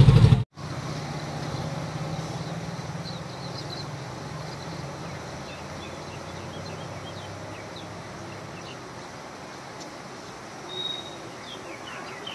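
Steady rushing of a swollen, fast-flowing flooded river, with a low rumble that fades over the first few seconds and faint bird chirps. About half a second in, loud road-traffic noise cuts off abruptly.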